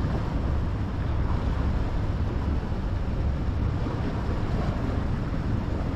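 Steady wind noise buffeting the microphone over the sea washing against shore rocks.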